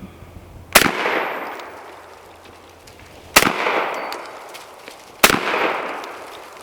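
Three shots from a 12-gauge shotgun, each a sharp crack followed by a long echo that fades over a second or two; the second comes about two and a half seconds after the first, the third about two seconds later.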